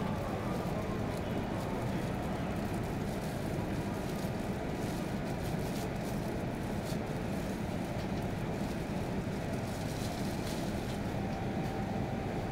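Steady hum inside the cabin of an E6 series Shinkansen standing still at the platform before departure, with a few faint ticks partway through.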